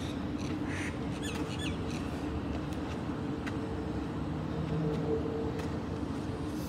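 Steady low mechanical hum with a few short high chirps about a second in, and occasional faint clicks.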